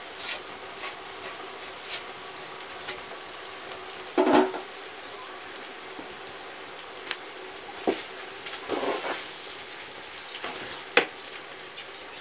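Metal cooking pots and a metal bowl clattering as they are handled: a loud clatter about four seconds in and another, shorter one around nine seconds. A few sharp clicks and a steady hiss run underneath from the open wood fire beneath the pot.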